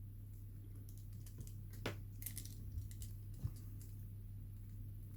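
Scattered small clicks and ticks of tools and small metal parts as a padlock's pin chamber is opened, the grub screw and pin stack being taken out, over a low steady hum.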